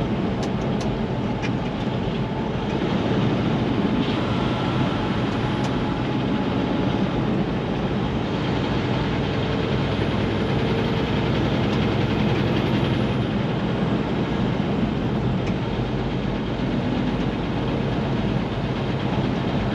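Steady road noise of a vehicle cruising at freeway speed, heard from inside the cabin: tyre rumble, engine drone and wind blending into an even, unbroken noise.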